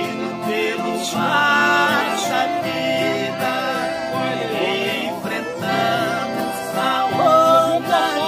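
Live sertanejo music: two acoustic guitars and two piano accordions playing, with male voices singing a melody line that swells about a second in and again near the end.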